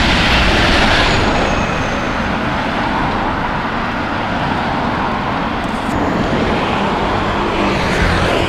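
Loud, steady city road noise with a low rumble, starting suddenly: traffic and rushing air as heard from a bicycle.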